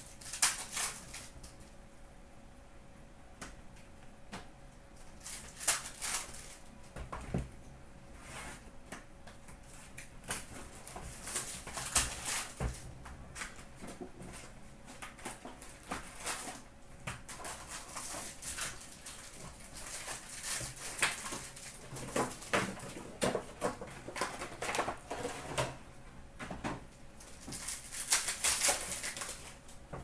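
Trading card packs and a cardboard hobby box being handled and torn open, with wrappers crinkling and cards flicked and shuffled in hand: an irregular run of rustles, crinkles and small taps that comes in bunches.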